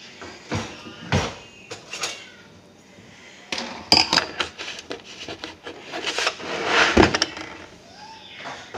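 Scattered knocks, clicks and clatter of household handling, like drawers, doors or dishes being moved, with a cluster about four seconds in and the loudest knock about seven seconds in.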